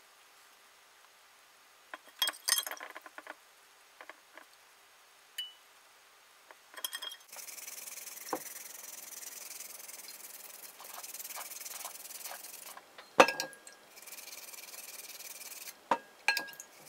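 Toothbrush bristles scrubbing the soaked transfer paper off a toner-transferred copper-clad PCB, a steady scratchy rubbing from about seven seconds in, with a short pause and a sharp knock partway through. Before it come a few small clinks of the wet board against the glass dish. This is the paper-removal step of toner transfer, just before etching.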